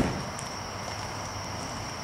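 Steady high-pitched chirring of night insects over a low background hum. The tail of a loud thump dies away at the very start.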